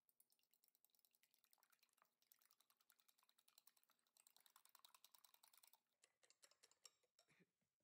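Fork beating two raw eggs in a glass bowl: a rapid, faint run of clinking taps as the fork strikes the glass and churns the egg, a little louder in the middle and stopping just before the end.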